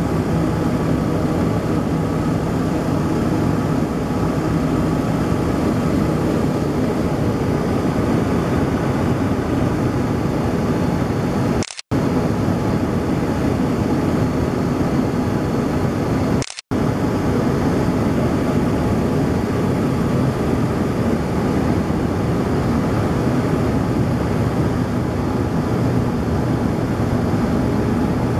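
Cabin noise of a Let 410 twin-turboprop airliner descending to land: the steady drone of its engines and propellers heard through the fuselage. The sound cuts out abruptly twice for a split second, about twelve and sixteen and a half seconds in.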